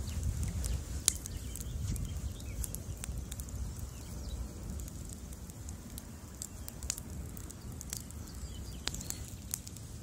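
Bonfire of wooden pallets burning: a steady low rumble of flames with frequent sharp crackles and pops, the loudest snap about a second in.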